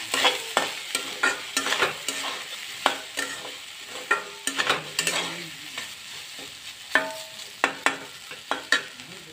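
Metal spatula stirring and scraping rice and vegetables around a metal kadai, clinking against the pan in irregular strokes several times a second, over a steady sizzle of frying.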